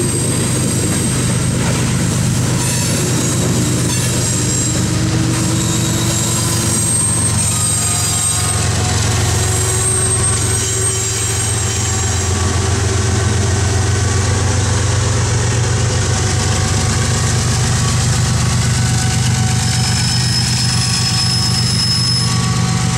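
Loaded coal train rolling by: steel wheels on the rails of the hopper cars clattering, with thin high wheel squeals. About halfway through, the CSX diesel pusher locomotive at the rear passes, its engine drone growing and holding as it works to shove the heavy train.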